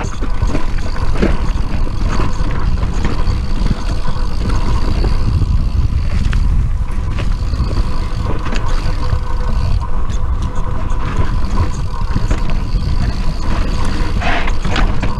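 Mountain bike riding down a dry dirt trail: heavy wind rumble on the microphone and tyre noise, with scattered clicks and knocks from the bike over bumps and a steady thin whine.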